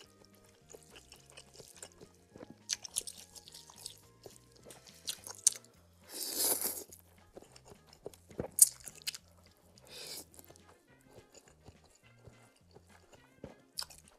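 Close-miked mouth sounds of eating spicy soup noodles: chewing, smacking and sharp little clicks, with one loud slurp of about a second some six seconds in and a shorter one about ten seconds in. Soft background music with low, stepping notes runs underneath.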